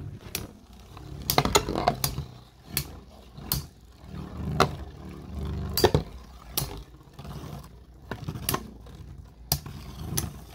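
Two Metal Fight Beyblade spinning tops whirring around a plastic stadium, their metal wheels clacking sharply against each other and the stadium wall at irregular intervals, about once a second.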